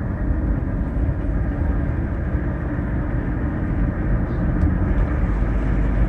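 A car being driven, heard from inside the cabin: a steady low rumble of engine and road noise while accelerating.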